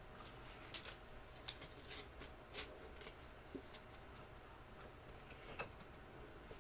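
Sports trading cards being handled and flipped through one at a time: faint, scattered soft flicks and swishes of card stock.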